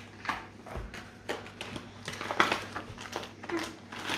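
Irregular scratchy strokes of colouring on paper, with small handling rustles; the loudest cluster comes a little past halfway.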